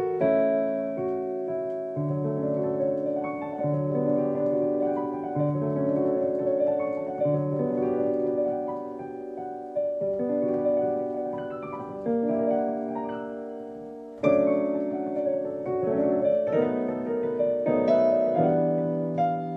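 Improvised piano playing on a GEM Promega 3 digital piano: sustained chords with a melody over them, changing every second or two. A softer, fading stretch gives way to a louder chord struck about two-thirds of the way through.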